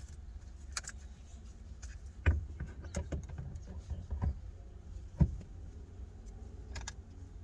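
Steering wheel and column parts being handled and fitted back together: scattered light clicks and taps, with a louder knock about two seconds in and another about five seconds in, over a low steady hum.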